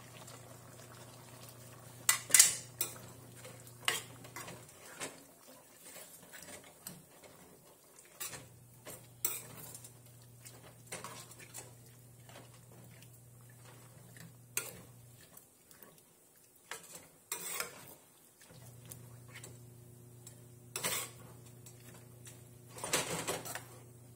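A metal spoon and a spatula stirring carrots, peppers and beef in a non-stick sauté pan, knocking and scraping against the pan at irregular intervals. The knocks are loudest about two seconds in and again near the end.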